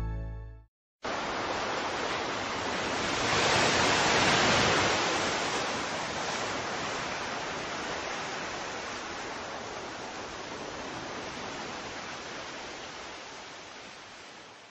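Music fading out, then after a brief silence a steady rushing noise, even and without tones, that swells a few seconds in and slowly fades away.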